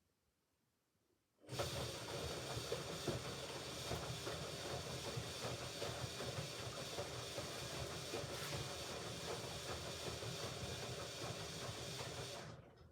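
Hoover Ecologic Computer Washer 1300 taking in water for a rinse: the inlet valve opens with a sudden start and water hisses steadily into the machine for about eleven seconds, then cuts off shortly before the end.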